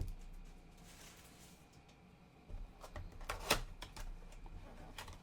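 Hands opening a cardboard trading-card box and handling the packs inside: a few soft rustles and taps, with a sharper click about three and a half seconds in.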